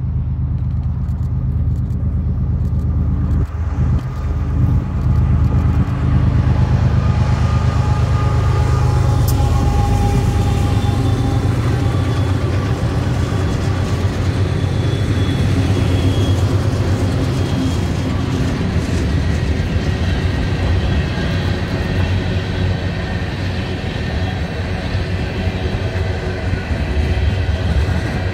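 A group of BNSF diesel-electric freight locomotives passing close under power, their engines running loud and deep with a higher steady whine over them. Near the end the first tank cars roll by.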